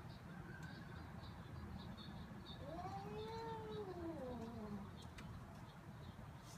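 Domestic cat giving one long, drawn-out yowl about two and a half seconds in, rising and then falling in pitch over about two seconds.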